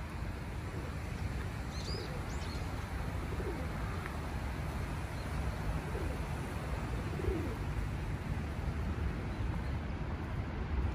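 Feral pigeons cooing softly several times over a steady low rumble, with a brief high chirp of a small bird about two seconds in.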